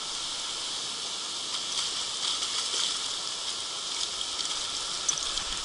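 Steady hiss of flowing river water, with a few light splashes between about two and three seconds in.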